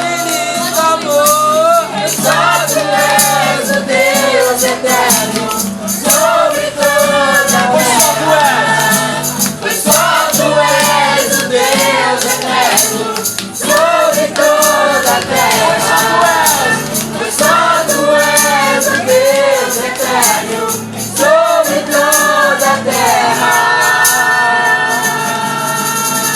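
Group of young voices singing a Portuguese worship song, accompanied by acoustic guitar and cajon with a steady beat. Near the end the sung phrases give way to a long held chord.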